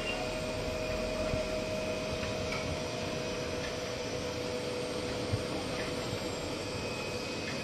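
Electric hydraulic pump motor of a mobile pallet inverter running with a steady hum while it tilts its clamped load.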